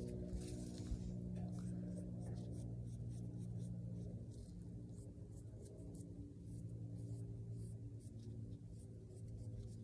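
Light scratching and rubbing, as paint is worked onto small foam pieces, under soft background music holding low sustained chords that change a few times.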